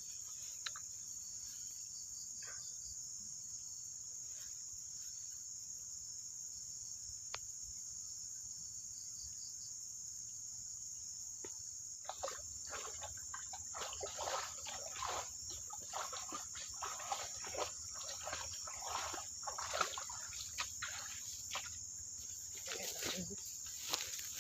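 Steady high-pitched chorus of insects, with a run of irregular short rustling noises from about halfway through.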